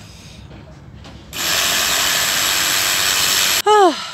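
A power tool runs in one steady burst of about two seconds, then stops.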